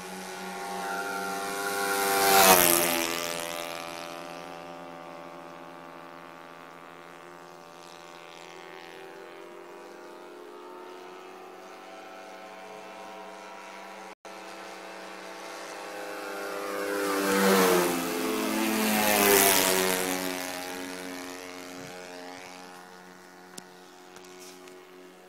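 Propeller aircraft engines droning steadily, with low fly-bys: one about two seconds in, then two more in quick succession past the middle. Each swells loud and drops in pitch as it passes.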